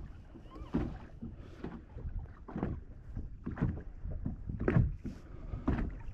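Choppy water slapping against a fishing boat's hull in strong wind, in irregular splashes about once or twice a second over a low rumble.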